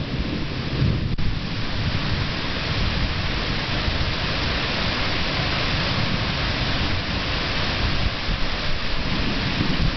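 Thunderstorm: rain falling steadily and heavily, with a low rumble of thunder underneath.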